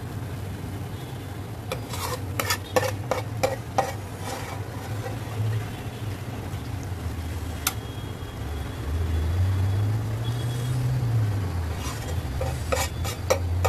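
A metal spoon spreading thick lentil masala over rice in a metal pot: soft scraping and a cluster of sharp spoon clicks against the pot about two seconds in, and again near the end. A steady low hum runs underneath and swells briefly past the middle.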